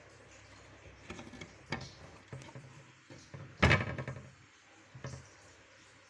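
A run of irregular knocks and bumps, five or so, the loudest a heavy thump about three and a half seconds in.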